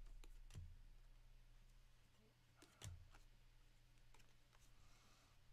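Near silence with a few faint clicks and taps of baseball cards being handled and shuffled on a table, the clearest about three seconds in, over a low steady room hum.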